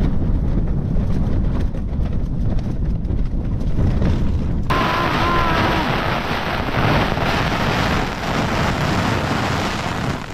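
Storm wind buffeting a Fjallraven Abisko Lite 2 tent in a low, steady rumble; about halfway through, a dense hiss of hail hammering the tent fabric starts suddenly and keeps on.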